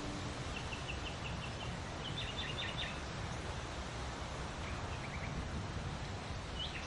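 Small songbirds chirping in short runs of quick, high notes, a few times over a steady outdoor hiss with a low rumble underneath.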